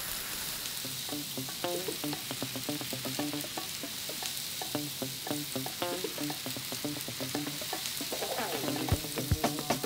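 Steady sizzle of chicken skewers frying in a pan over high heat, with soft background music. Near the end a kitchen knife chops mint leaves on a wooden cutting board in a run of quick strokes.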